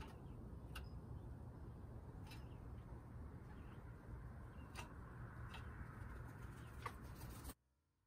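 Pileated woodpecker pecking at suet in a wire-cage feeder: about five sharp, irregularly spaced knocks over a steady low rumble, with faint small-bird chirps. The sound cuts off suddenly near the end.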